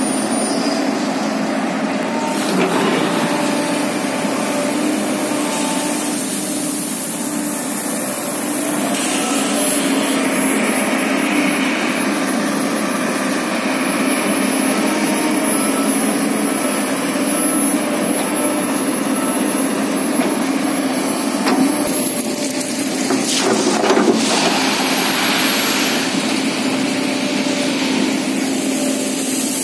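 Hydraulic excavator's diesel engine running steadily under working load, with the hydraulics working the arm and bucket; a few sharp knocks about three quarters of the way through.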